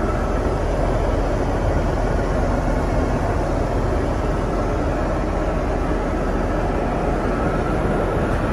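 Steady in-flight cabin noise of a Boeing 747-8, an even rushing hum heard inside the crew rest compartment.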